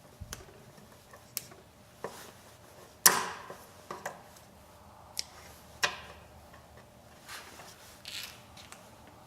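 Irregular sharp snaps and clicks, about eight, the loudest about three seconds in: a wood duck's legs being cut off at the joints.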